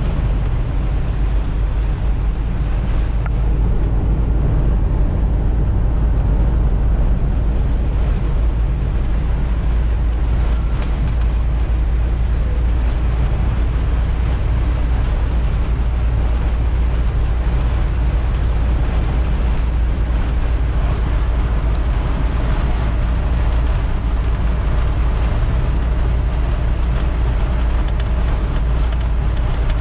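Steady road noise of a car driving on a wet highway, heard inside the cabin: a deep rumble of tyres and engine with a hiss over it.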